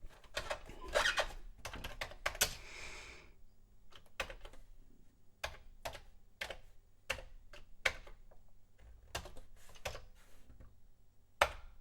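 Computer keyboard keys being pressed: a quick run of clicky keystrokes, then single presses every half second to a second.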